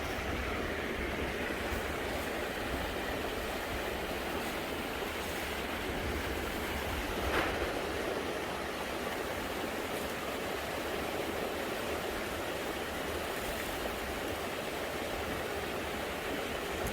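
Creek water running over rocks in a steady, even rush, with a low rumble of wind and one brief sharper sound about seven seconds in.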